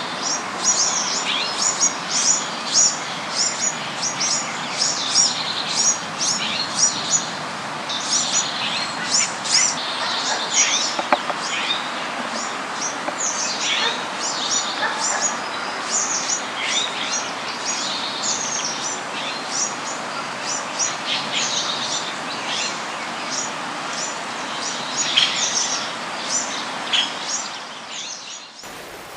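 Many small birds chirping in quick, overlapping bursts over a steady background hiss. The sound cuts off abruptly near the end.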